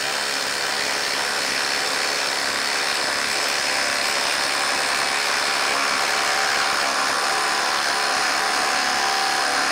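Ryobi 18V ONE+ HP impact driver hammering steadily without a break as it drives a large lag screw into a wooden log through a socket. It stays under full load the whole time.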